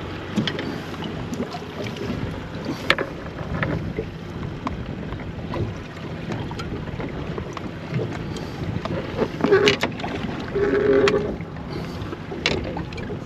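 Wind buffeting the microphone over water sloshing against a small boat's hull, with scattered sharp clicks and knocks of gear being handled.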